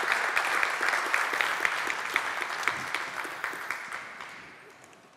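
Audience applauding at the end of a talk, many hands clapping together; the applause thins out and dies away from about three seconds in.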